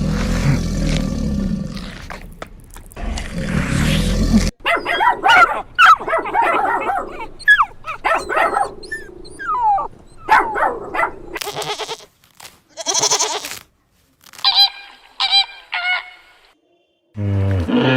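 A string of different animal calls from spliced clips: a low rumbling call that cuts off suddenly, then many short high cries rising and falling in pitch, and later a few short calls in quick succession.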